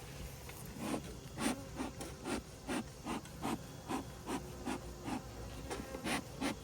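Honeybees buzzing around their hive, overlaid by a regular series of short rasping strokes, about two to three a second, starting about a second in.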